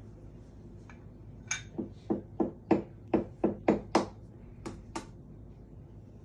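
A raw egg tapped repeatedly against the rim of a small bowl to crack it: about a dozen light, sharp knocks, some with a short ring, in an uneven run over about three seconds.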